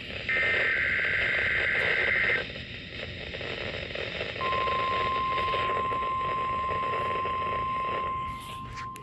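NOAA Weather Radio weekly test received over a weather radio with background static: a roughly two-second burst of warbling SAME digital header tones, then, about four seconds in, the steady 1050 Hz warning alarm tone starts and holds.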